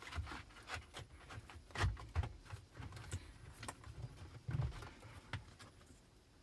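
Hands working cables and plastic trim behind a car dashboard: irregular clicks, taps and knocks, with louder knocks about two seconds in and again about four and a half seconds in, quieter near the end.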